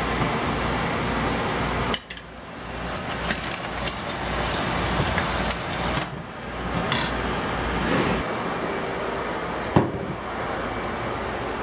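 Crab claws and sauce being scooped and scraped out of a stainless frying pan onto a plate: a metal spoon clinking and scraping against the pan, with scattered clinks and one sharp knock near the end.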